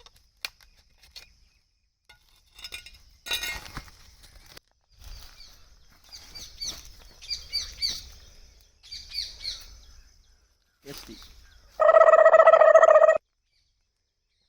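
Small birds chirping in runs of quick, short, downward-sliding calls, after a few sharp knocks. Near the end a loud, steady single-pitched tone, the loudest sound here, sounds for just over a second and cuts off abruptly.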